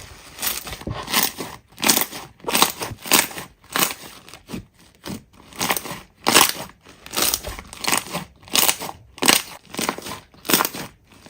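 Slime being squeezed and pressed by hand, crackling in quick repeated bursts about two times a second.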